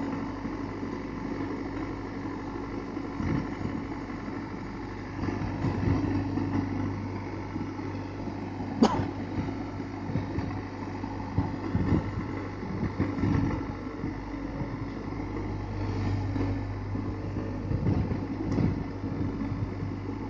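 Dieci 70.10 telehandler's diesel engine running steadily while the boom is raised, with uneven swells in loudness. A single sharp clank about nine seconds in.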